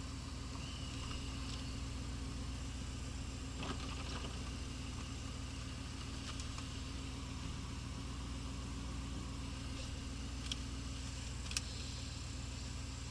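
1983 Pontiac Trans Am's 305 small-block V8 idling steadily as the car crawls in slow traffic, heard from inside the cabin, with a few faint clicks.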